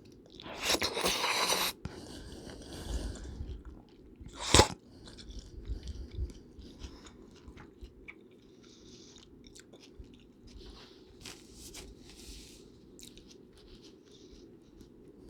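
Close-miked eating sounds: a noisy burst about a second in and a sharp click a little before the five-second mark, then soft chewing and small mouth clicks, over a steady low hum.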